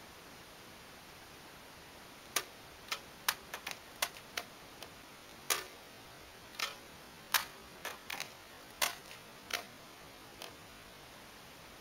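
A run of sharp cracks and knocks as a katana cuts a standing green bamboo pole down in a series of quick cuts, the cut sections dropping onto the concrete. About fifteen cracks, irregularly spaced, begin about two seconds in and stop near the end.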